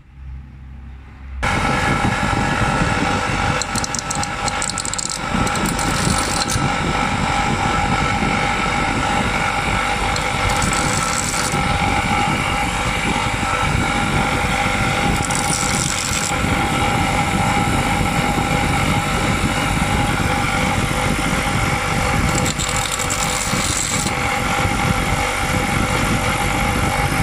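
Electric power tool running steadily, starting about a second and a half in, as it grinds a little material off a rear brake pad so the pad can slide freely in its caliper bracket.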